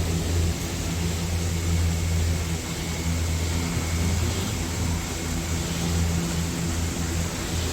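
A steady low mechanical hum with a faint hiss over it, swelling and easing a little without stopping.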